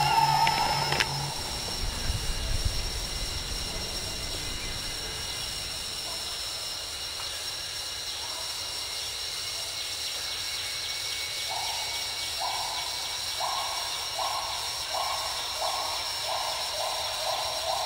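Electric drive motor and gearbox of a Tamiya CR-01 RC crawler whining. The steady whine cuts off about a second in. From about two-thirds of the way through, the motor gives a string of about ten short whines, each rising in pitch and coming faster toward the end, as the truck is throttled in bursts up a pile of gravel.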